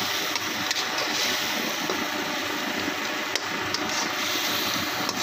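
Chicken karahi sizzling and bubbling in its oily sauce in a karahi on the stove, a steady sizzle with a few light clicks from the spatula against the pan.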